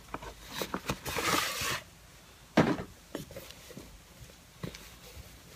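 A cardboard box and a cloth dust bag being handled: rustling and sliding with small clicks for the first couple of seconds, a sharp knock about two and a half seconds in, then quieter handling.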